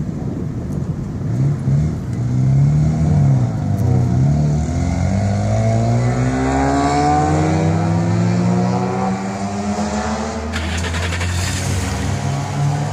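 A car engine revving up and down a few times, then pulling hard with its pitch climbing steadily for several seconds as the car accelerates. A hiss comes in near the end.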